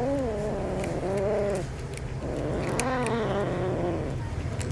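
A domestic cat making short, drawn-out vocal noises while eating: three calls, each rising then falling in pitch, with small clicks between them.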